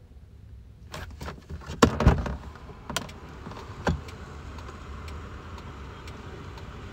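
Laptop keyboard keys tapped one at a time while a password is typed, with a few louder knocks around two seconds in and fainter ticks later.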